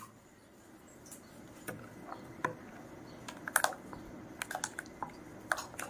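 Scattered light clicks and taps of a kitchen utensil against a bowl of batter, about a dozen irregular knocks, with a few quick runs near the middle.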